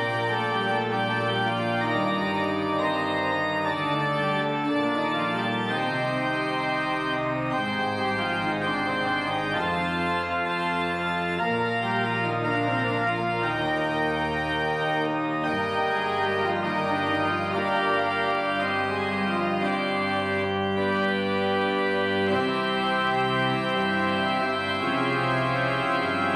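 Church pipe organ playing held chords over low bass notes, the harmony shifting every second or so.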